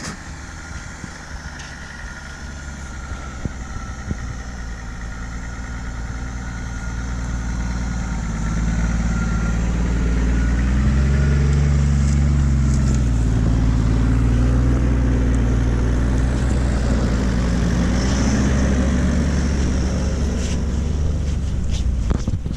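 Off-road 4x4's engine working under load while towing another vehicle. It grows louder over the first ten seconds or so, its pitch rises and dips a couple of times midway, then it runs steadily.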